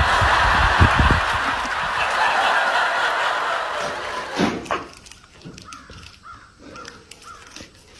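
A Bactrian camel giving one long, hoarse, rasping call lasting about four and a half seconds. After it stops, only faint sounds remain as a camel bites into a cactus.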